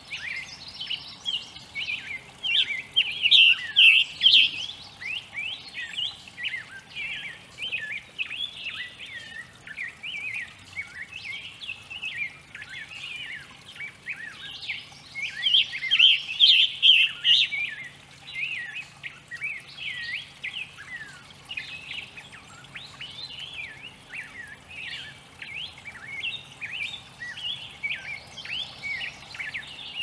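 Songbirds chirping and singing continuously, several birds overlapping, with two louder bursts of song about three and fifteen seconds in.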